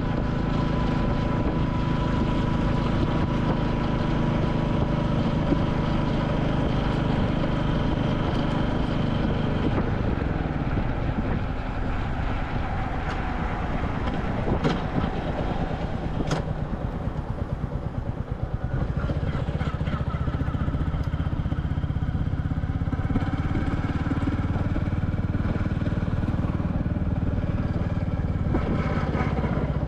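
Royal Enfield Classic 350's single-cylinder engine running under way, then dropping in pitch about a third of the way in as the bike slows. It settles into a steady lower note, with a couple of sharp clicks in the middle.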